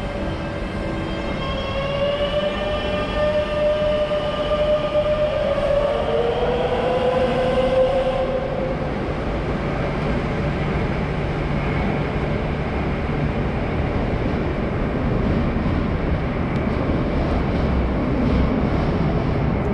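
Madrid Metro Line 10 train running: the electric traction whine, several tones together, shifts in pitch and stops about eight seconds in, leaving a steady rumble of the train on the track.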